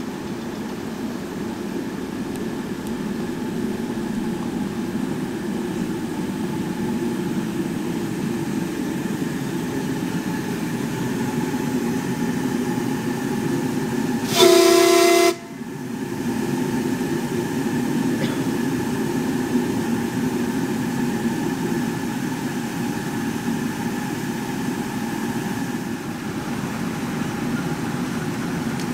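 Ride-on live steam locomotive's whistle sounding one loud blast of just under a second, cut off sharply, over a steady low engine hum.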